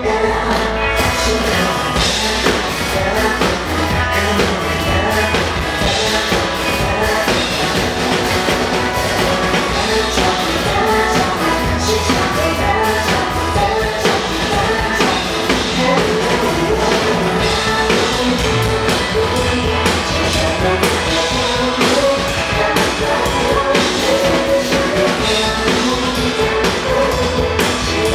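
Drum kit played along to a pop-rock song with vocals, with steady beats and fills throughout.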